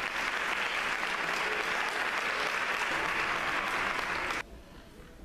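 Audience applauding, a dense clapping that cuts off abruptly a little over four seconds in.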